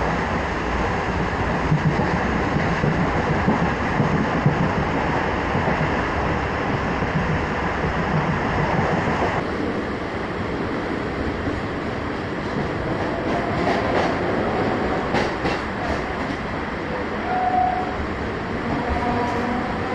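Electric suburban local train running on the rails, heard from inside the carriage, with wheels clattering over the rail joints. It runs a little quieter in the second half as it slows into a station, with a few sharp clicks.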